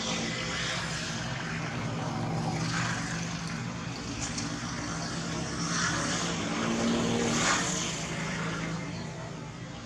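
A steady engine drone with a low hum, swelling a few times and loudest about seven and a half seconds in, then fading.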